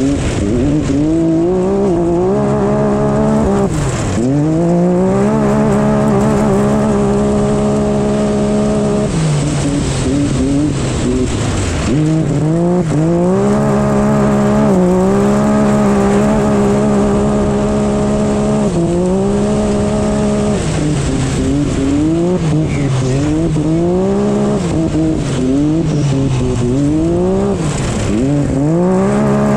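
Side-by-side UTV engine running hard, heard from an onboard camera on the vehicle: the engine note holds steady for stretches, then repeatedly drops and climbs back up as the throttle is lifted and reapplied.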